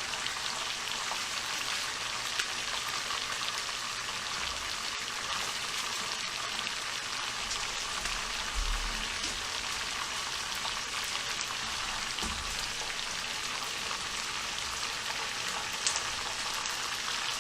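Steady sizzling hiss with scattered small crackles from food cooking on the stovetop, with a couple of soft low bumps.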